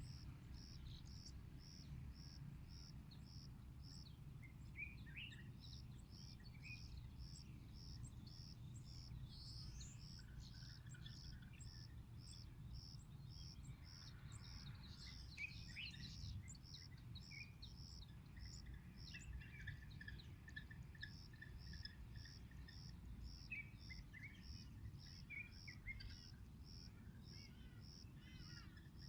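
Faint outdoor ambience: a high chirp repeating steadily about twice a second, dropping out for a while in the middle, with scattered short bird calls over it and a low rumble underneath.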